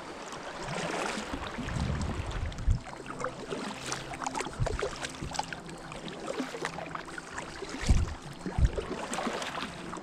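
Kayak paddling on a river: paddle strokes dipping and splashing, with water moving along the hull, and two strong low thumps near the end.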